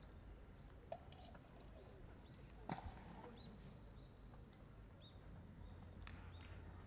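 Quiet outdoor ambience with faint bird chirps and two faint distant knocks, about a second in and again about two seconds later.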